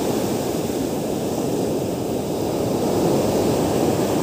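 Ocean surf breaking and washing up a sandy beach: a steady rush of waves that swells a little about three seconds in.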